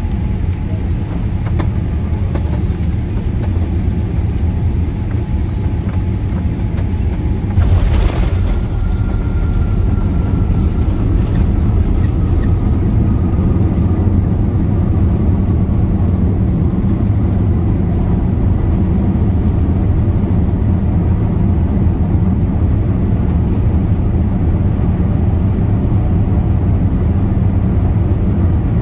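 Boeing 787 cabin noise during landing: a steady low rumble, then a sudden louder surge about seven and a half seconds in as the airliner touches down. After that comes the slightly louder rumble of the rollout with the spoilers raised, with a faint falling whine.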